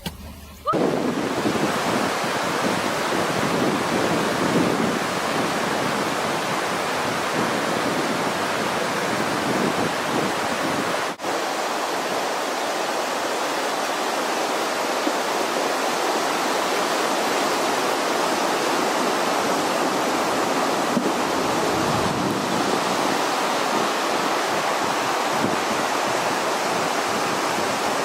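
Loud, steady rush of flowing floodwater, an even noise that starts suddenly just under a second in and breaks off for an instant about eleven seconds in.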